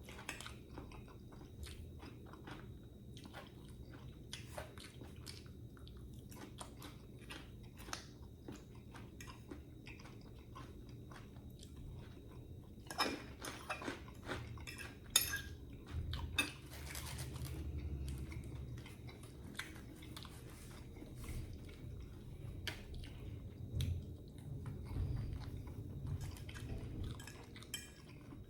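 A person chewing and biting food close to the microphone, with crunching and many short wet mouth clicks; the sounds come thickest about halfway through.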